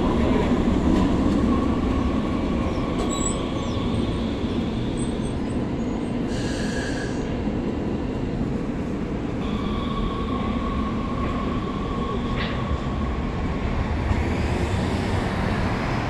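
Two-car Breda light-rail train with GE GTO-VVVF traction motors pulling out of the platform and rolling away: a steady rumble with a high steady whine running over it.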